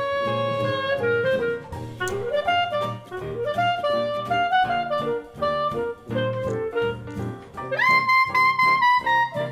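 Jazz background music led by a saxophone melody over a rhythm section, with a louder held note near the end.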